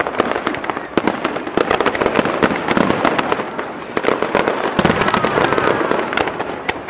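Fireworks display: aerial shells bursting in a rapid, dense run of bangs and crackles, several a second with no pause.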